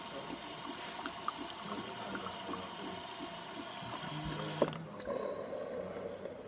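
DeLonghi Magnifica espresso machine working through its cappuccino cycle: the machine ticks mechanically about four times a second. About four and a half seconds in there is a sharp click, and then a steady soft hiss.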